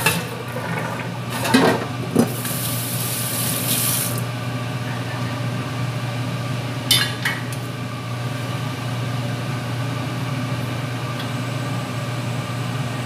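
Utensils clinking and knocking against bowls and a pan during cooking, a few separate times (about a second and a half and two seconds in, and again around seven seconds), over a steady low kitchen hum and hiss.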